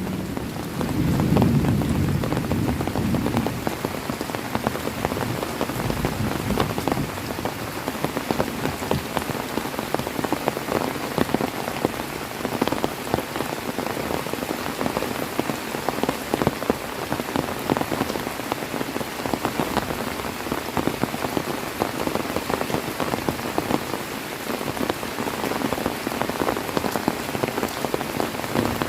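Heavy rain falling steadily, with many separate drops ticking on a surface. A low rumble of thunder dies away over the first few seconds.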